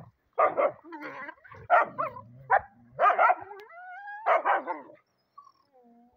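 Several dogs scuffling, giving short harsh barks and snarls in quick bursts for about five seconds. A rising whine comes in the middle, and a faint short whine near the end.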